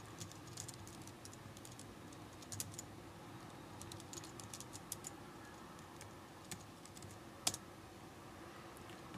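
Faint computer keyboard typing: keystrokes in short clusters, denser in the first half and sparser later, with one sharper click near the end.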